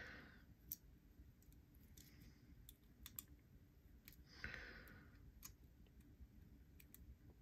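Faint, scattered small clicks of a precision screwdriver bit and metal screws being worked into a folding knife's handle, with a brief soft rustle of handling about four and a half seconds in.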